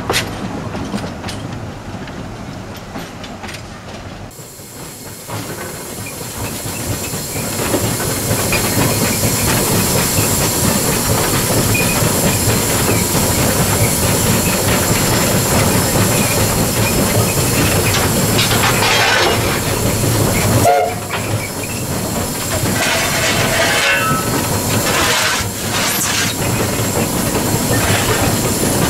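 Two-foot gauge SAR class NG15 steam locomotive running with its train, wheels clicking over the rail joints. The sound grows louder from about four seconds in and then holds steady.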